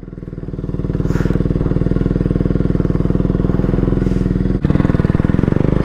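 Bajaj Pulsar AS200's single-cylinder engine idling steadily just after a cold start, with an even, rapid firing beat. It grows louder over the first second.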